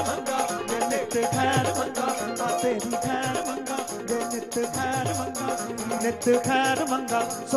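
Live Punjabi Sufi band playing an instrumental passage between sung verses: a wavering melody over a steady percussion beat with a shaker-like rattle.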